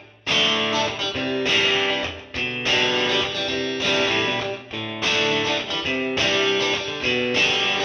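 Background music: electric guitar playing chords with an effects sound.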